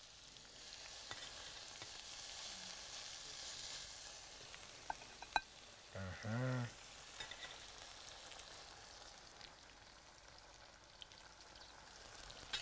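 Steady sizzle of sauce bubbling in a hot pan on the stove, the pan the lamb was seared in. A couple of light clinks of a metal serving spoon about five seconds in, and a short hum of a voice around six seconds.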